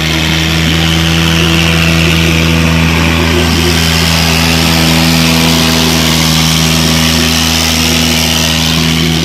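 Diesel engines of two farm tractors, a Swaraj 855 and a New Holland, held at high revs in one steady drone as they pull against each other under heavy load in a tug-of-war.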